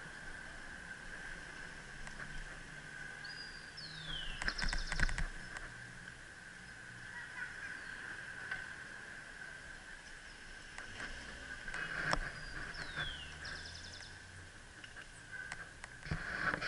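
Bicycle rolling along a paved sidewalk, with clusters of rattling clicks as it jolts over the joints between slabs, three times, over a steady high tone. A short falling whistle sounds twice.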